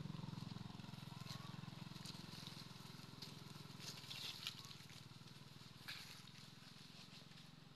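A low, steady engine hum that slowly fades, with a few brief crunches and rustles of dry leaf litter.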